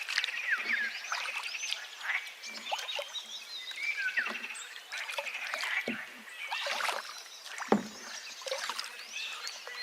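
Forest birds chirping and trilling over the steady rush of a flowing river, with a few low water plops, the loudest nearly eight seconds in.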